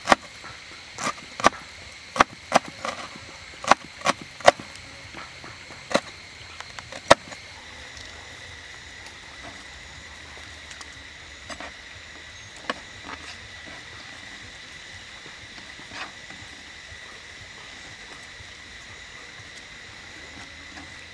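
Cleaver chopping red chili peppers on a wooden cutting board: about a dozen sharp, irregular knocks over the first seven seconds, then stopping. A steady high-pitched insect drone continues throughout.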